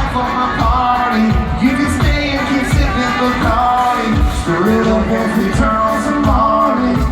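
Live band playing a country-pop song: a sung lead vocal over drums and guitars.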